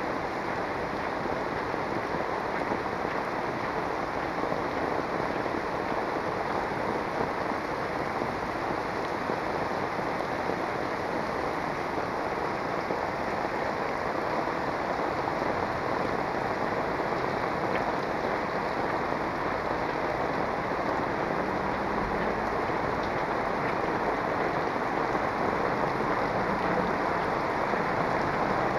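Heavy rain falling on a street, a dense, steady hiss.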